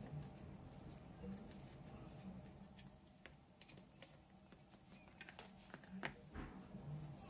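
Faint scattered clicks and taps of a plastic microphone holder being handled and screwed onto a small tripod, with a couple of slightly louder clicks near the end.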